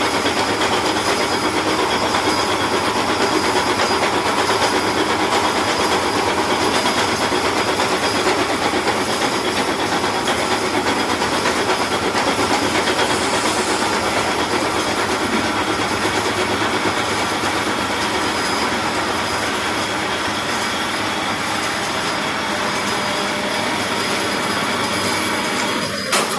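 Milling machine taking a finishing cut on iron: a steady metal-cutting noise with a few thin, steady high tones over it.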